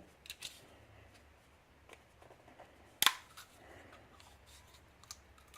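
Small hard clicks of lock parts and tools being handled and set down: a few faint ones at the start, one sharp click about three seconds in, and a light one near the end.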